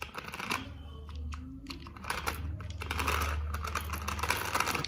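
Battery-powered remote-control toy stunt car running, its small motor humming steadily under a fast clatter of plastic wheels and body.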